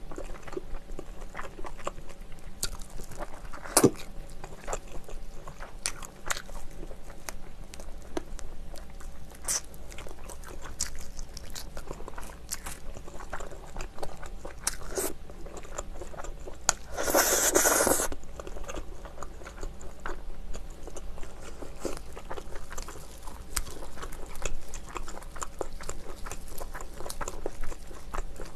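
Close-up eating of sauced fried chicken: biting and chewing the crunchy coating, with small clicks and crackles as gloved hands pull the pieces apart. About seventeen seconds in, a louder noisy stretch lasts about a second.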